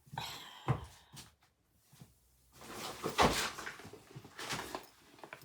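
Rummaging for a screwdriver: a series of knocks, clunks and rustles as things are moved about, the loudest clunk about three seconds in.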